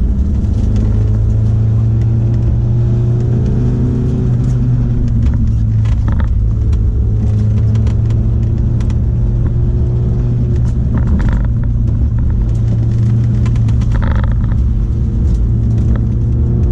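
1987 VW Scirocco's four-cylinder engine pulling the car through an autocross course, running steadily with the revs rising and falling a little between cones. A few brief higher-pitched sounds come about 6, 11 and 14 seconds in.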